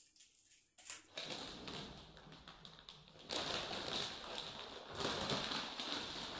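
Crinkling and rustling of a plastic snack wrapper being handled, a dense run of small crackles that grows louder about three seconds in, after a single click near the start.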